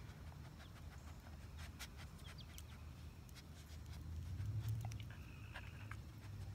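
A dog nosing and licking at a closed fist that holds treats: faint snuffling and small clicks, over a low steady rumble that swells about four seconds in.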